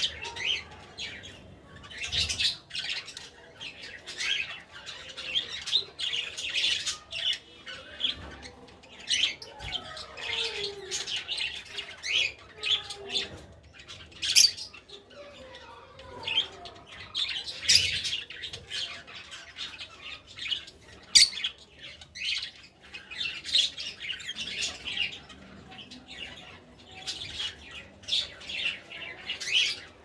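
Fischer's lovebirds chattering: a continuous run of high, sharp chirps and squawks, with a few louder shrieks now and then.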